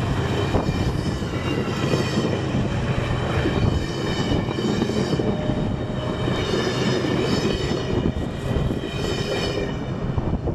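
Amtrak passenger coaches passing close by at speed: a steady rush and rumble of wheels on rail, with high ringing tones that swell and fade. It starts to die away near the end as the last car goes by.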